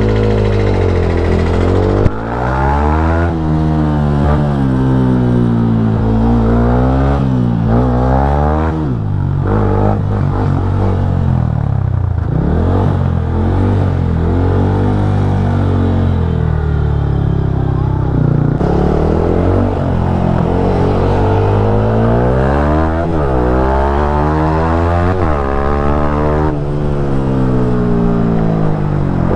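Yamaha MT-15's 155 cc single-cylinder engine under way. It rises in pitch as the bike accelerates and drops back at each gear change or roll-off, over and over.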